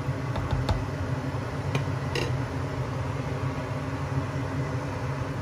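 A cooking spoon knocking and clinking against a nonstick pot of curry while stirring, several light knocks in the first half, over a steady low hum.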